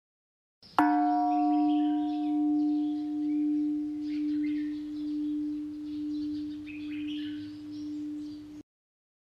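A singing bowl struck once about a second in, ringing with a low tone that swells and fades in slow waves as it dies away, then cut off sharply near the end. Faint high chirping sounds behind it.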